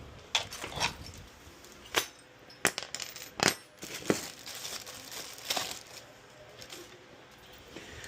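Small hardware being handled: a string of sharp clicks and light clinks, about eight in the first five or six seconds, then quieter.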